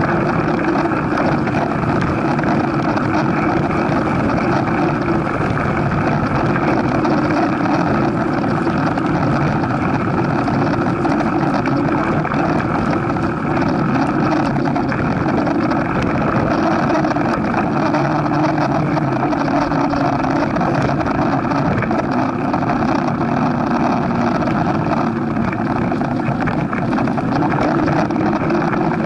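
Mountain bike riding on a dirt trail, heard from a camera on the moving bike: a steady rush of tyre rolling noise and wind on the microphone.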